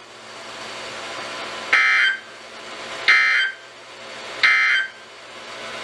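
EAS/SAME digital data bursts on NOAA Weather Radio: three short, harsh buzzy chirps about 1.3 seconds apart, with receiver hiss between them. Coming straight after the warning text, they are the end-of-message signal that closes the alert.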